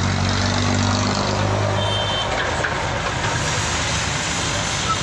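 An engine running low and steady under street traffic noise, fading out about two seconds in. A single short high beep sounds around the same moment.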